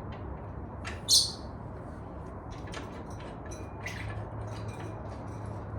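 Birds chirping and squawking in short scattered calls, one louder call about a second in. A low steady hum comes in about halfway through.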